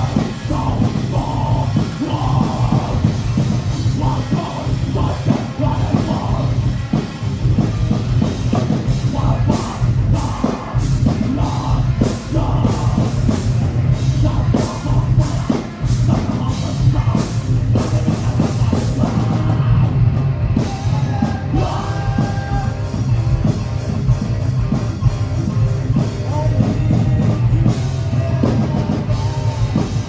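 Live rock band playing loud: electric guitars, bass guitar and drum kit, heard continuously with a heavy, steady beat.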